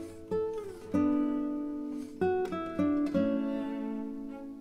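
Background music on acoustic guitar: a string of plucked notes and strummed chords, each ringing out and fading, with a few sliding notes.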